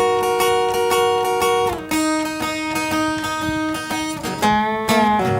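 Blues band's guitar playing held chords with quick repeated strokes, changing chord about four and a half seconds in.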